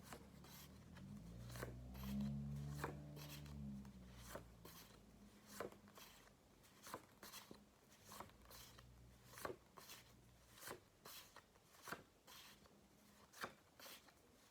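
Near silence broken by faint, sharp clicks and light rustles, roughly one a second. A low hum swells and fades between about one and four seconds in.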